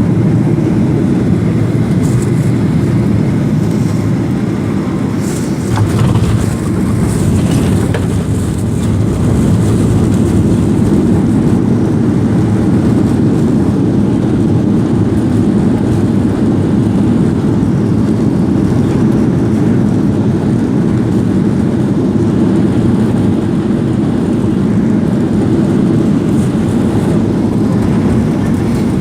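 Steady, loud rumble of engines and airflow inside an airliner's passenger cabin, with a few faint clicks about six to eight seconds in.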